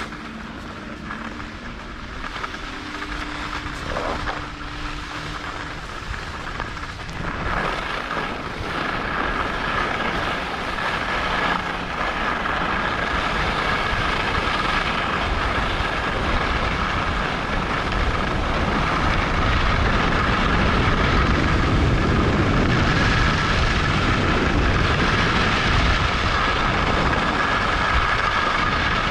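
Skis running down a snow piste, with a rushing noise of wind on the microphone that gets louder from about seven seconds in as the run picks up.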